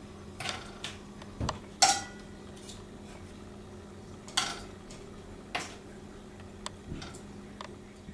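Light, intermittent clinks, knocks and short scrapes of dishes and utensils, the sharpest about two seconds in, over a steady low hum.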